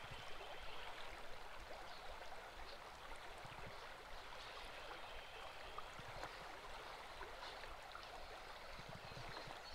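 Faint, steady rush of creek water flowing over shallows.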